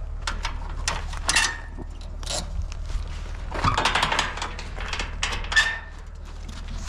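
Metal clanking and rattling in a string of sharp knocks, two of which ring briefly with a clear metallic tone, the loudest near the end, over a steady low hum.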